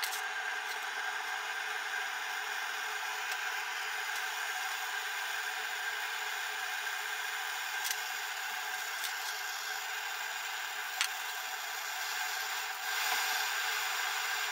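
Handheld gas cartridge torch burning with a steady hiss, heating a tungsten-carbide contact tip for brazing with copper rod and borax. A couple of sharp clicks come around the middle, and the hiss grows a little louder near the end.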